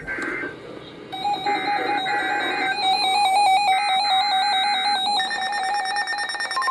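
NOAA Weather Radio SAME header: short bursts of warbling digital data, repeated. Over it, weather radio receivers' alert alarms go off: a steady beeping tone starts about a second in, a second higher alarm joins about five seconds in, and the long steady warning alarm tone begins at the very end.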